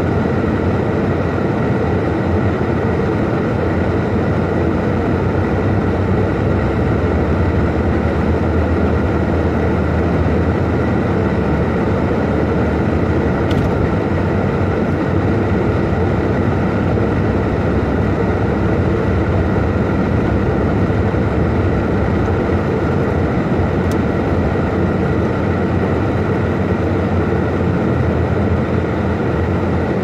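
Steady engine and tyre noise heard from inside a car's cabin while driving on a snow-covered road, an even low rumble that does not change.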